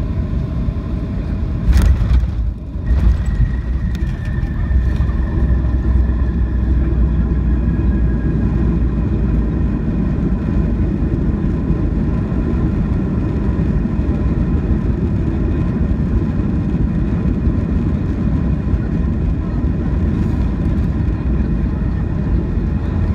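Cabin noise of a Boeing 737-800 rolling out and slowing on the runway after landing: a steady deep rumble from the wheels and CFM56-7B engines. About two seconds in comes a sudden knock with a brief dip in the noise, then a high whine that slowly falls in pitch over several seconds.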